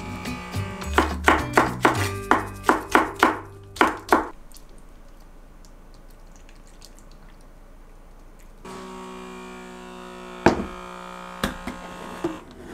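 Light instrumental background music. A quick run of sharp taps or knocks comes in the first third, and a few single clicks come near the end.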